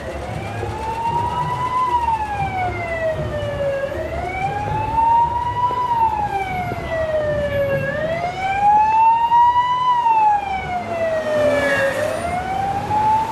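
Emergency vehicle siren in a slow wail, its pitch rising for about two seconds and falling for two, three times over, above the low rumble of city street traffic.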